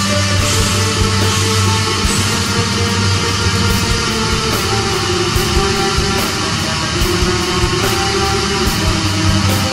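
Black metal music: a dense wall of distorted electric guitars over fast, driving drums.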